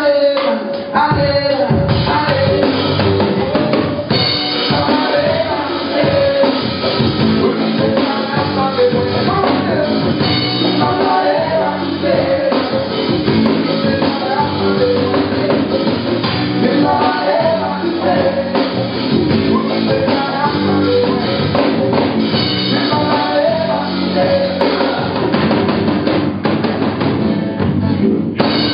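Live band playing a song: a steady drum-kit beat under electric and acoustic guitars and bass guitar.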